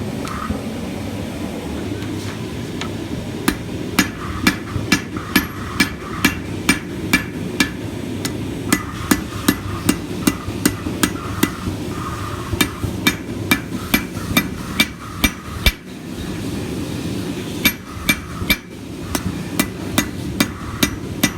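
Blacksmith's hammer striking hot steel on an anvil while forging small brackets, in several runs of blows at about two to three a second, each strike ringing, with short pauses between runs. A steady low rumble runs underneath.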